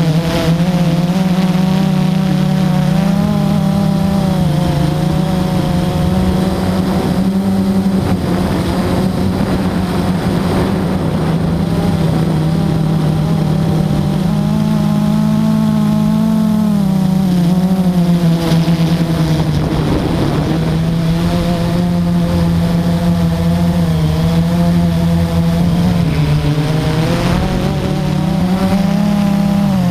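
Multirotor drone's electric motors and propellers humming steadily, heard from the aircraft itself, the pitch wavering up and down a little as it climbs and turns.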